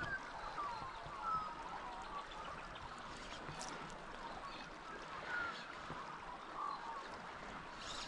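River ambience: a steady rush of water running over a shallow riffle, with scattered short bird calls throughout.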